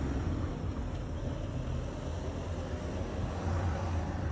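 Steady low rumble of vehicle traffic, with no separate events standing out.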